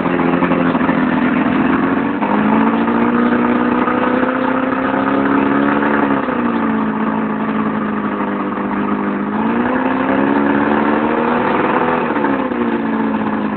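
A 50 hp Mercury blue-band two-stroke outboard motor runs with its cowling off. It is revved up twice from idle, each time held for a few seconds before dropping back.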